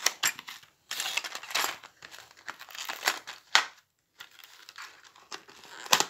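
A stiff clear plastic blister pack being cut with scissors and pulled apart, the plastic crackling and crinkling in irregular bursts, with a sharp snap about three and a half seconds in.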